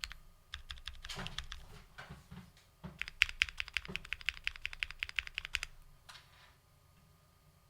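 Typing on a custom 60% mechanical keyboard: fast runs of key clacks with a few heavier, deeper strokes among them. The typing stops a little before the end, leaving a few faint keystrokes.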